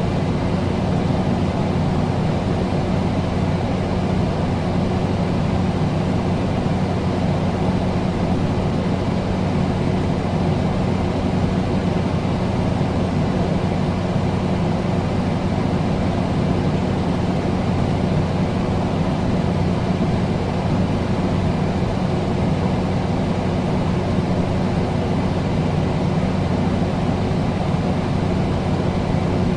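Air conditioner running: a steady low hum over an even rushing noise.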